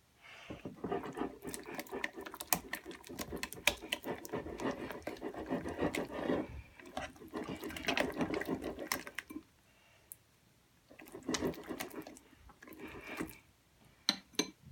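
Still-sticky glue-and-borax slime being mixed and squished, giving wet sticky squelches and crackly clicks in two stretches, with a pause about ten seconds in. The stickiness shows the slime has not yet set.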